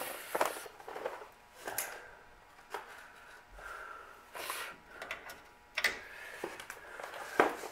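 Scattered light clicks and knocks, with one short rustle about halfway through, from tools and brake parts being handled during work on the car's rear brakes.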